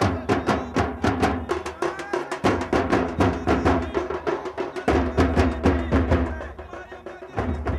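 Drums of a street procession played in a fast, driving rhythm: sharp strokes several times a second over deep low drum beats.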